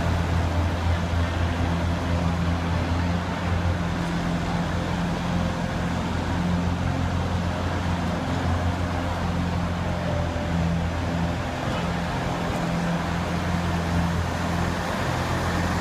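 Zamboni ice resurfacer running steadily as it drives across the rink ice: a low, even hum.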